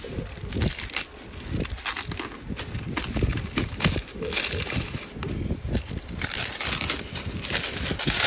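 Crinkling and crackling handling noise, with many scattered clicks and brighter rustling stretches in the middle and near the end.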